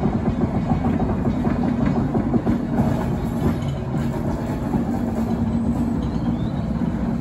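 Fowler diesel shunting locomotive running slowly past with a steady low engine note, hauling a brake van, with wheels clicking over the rails and points.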